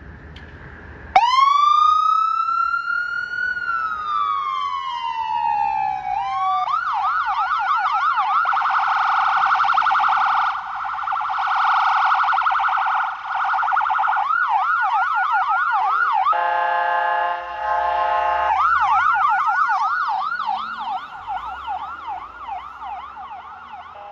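Ambulance electronic siren switching on about a second in: one slow wail that rises and falls, then a fast yelp, cut over for about two seconds to a steady blaring horn tone, then back to the yelp. It fades over the last few seconds as the ambulance drives away.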